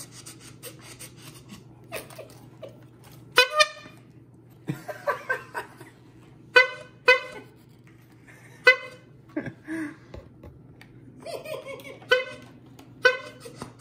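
Rubber-bulb squeeze horn for a walker honked again and again: about eight short honks at uneven intervals, with laughter between them.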